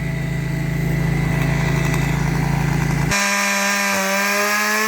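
Gas chainsaw running steadily at high revs while cutting pine. About three seconds in, the pitch jumps higher and climbs slowly, then drops as the throttle is let off.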